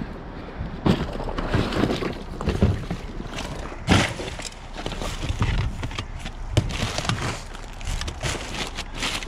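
Hands rummaging through trash in a metal dumpster: plastic, cardboard and bags rustling and shifting, with several sharp knocks and clatters as items are moved.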